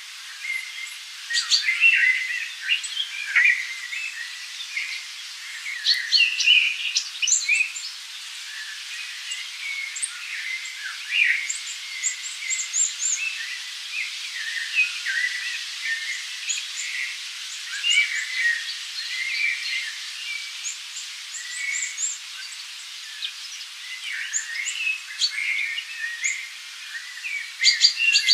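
Many forest birds singing and calling over one another: a dense, unbroken chorus of short chirps, trills and whistles.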